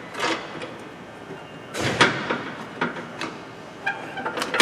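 Metal clunks and scrapes as a new lower control arm is worked into line with its mounting points. There is a scrape and knock about two seconds in, a few lighter knocks after it, and a quick run of taps near the end that finishes in a sharp clank.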